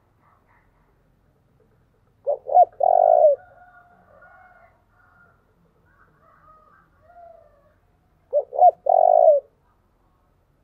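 Spotted dove cooing: two calls about six seconds apart, each two short clipped notes followed by a longer coo. Faint chirping of other birds comes in between.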